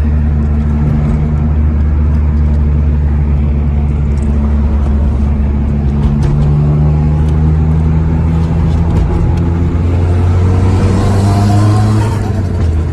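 Turbocharged Nissan SR engine in an S14 Silvia heard from inside the car, pulling under load with its note climbing steadily and turbo hiss building over the second half. The engine note falls away and the loudness dips near the end as the throttle lifts.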